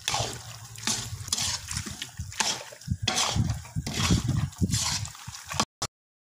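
A metal spatula stirring thick, sticky halwa in a metal karahi: a run of irregular scraping strokes against the pan. It cuts off abruptly near the end.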